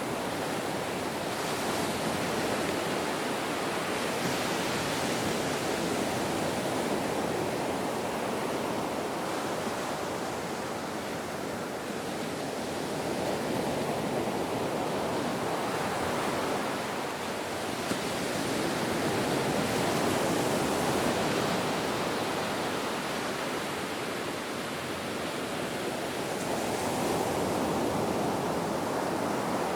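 Ocean surf: waves breaking and washing in a continuous rush that swells and eases every several seconds.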